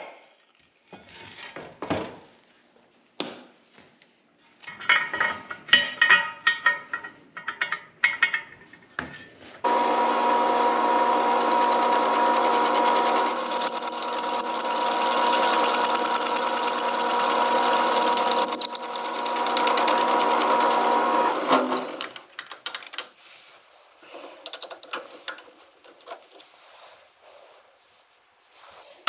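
Light metallic clicks and knocks of parts being handled, then a Sears Craftsman metal lathe starts about ten seconds in and runs with a steady hum. For about five seconds in the middle a drill bit in the tailstock chuck cuts into a cast bushing, adding a rhythmic high hiss as it bores the bushing out to 1 inch. The lathe stops suddenly about twenty-one seconds in, followed by more light handling clicks.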